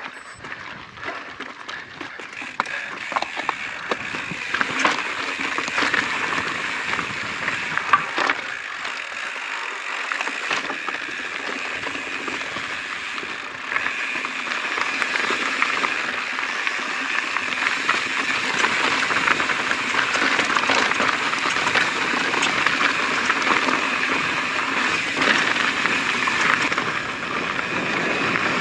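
2020 YT Izzo mountain bike riding over a rocky technical trail section: a steady noise of tyres rolling on stone, with scattered clicks and knocks from the bike and rocks. The noise grows a little louder about halfway through.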